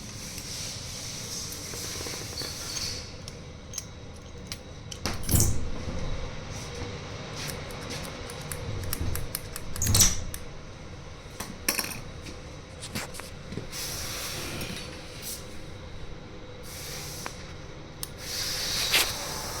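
Small metal parts and tools being handled on a workbench: scattered clicks and clinks, with a few louder knocks about five seconds in, about ten seconds in and near the end, where a short hiss also sounds.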